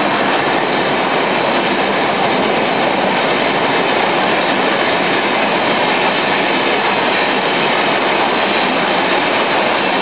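Duronto Express passenger coaches rolling past a platform at speed: a loud, steady rush of wheels on rails.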